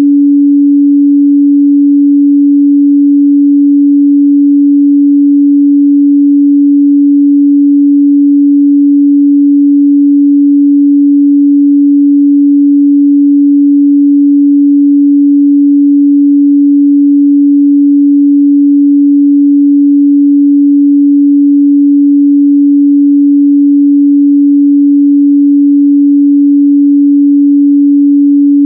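A steady, loud 285 Hz sine-wave test tone, one unchanging pitch with no other sound, used to check the midrange response of speakers or headphones.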